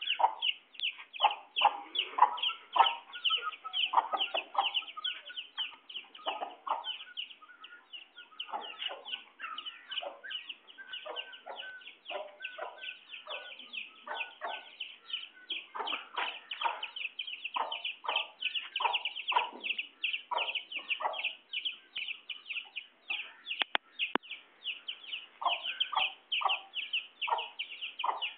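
Chickens clucking, over a steady stream of quick high chirps at about four a second.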